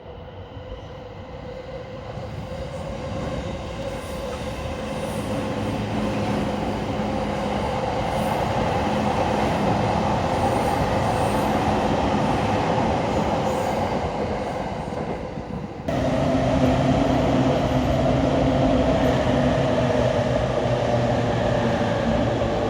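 Trains running past on the tracks: a continuous rolling rumble with a steady hum that swells over the first several seconds and eases off, then an abrupt change about sixteen seconds in to another passing train.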